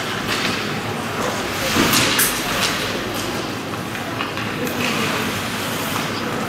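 Ice hockey rink sounds: skate blades scraping and carving the ice, with a few sharp clacks of sticks and puck, over a steady background hum.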